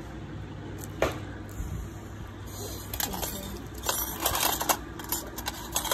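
Light clicks and clinks of small steel nail tools being handled, with brief rustling, over a steady low hum.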